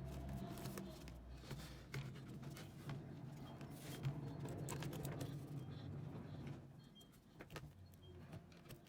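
Faint small clicks, ticks and scrapes of a small screwdriver and hands working on a laptop screen, driving the four LCD mounting screws back in, over a low steady hum.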